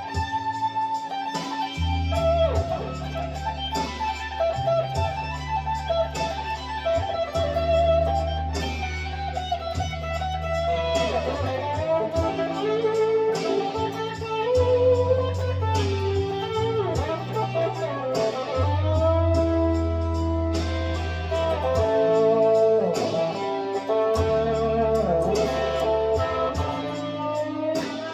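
Gibson Les Paul Traditional electric guitar playing a lead line with string bends in a bluesy style. It plays over sustained low bass notes that come in about two seconds in.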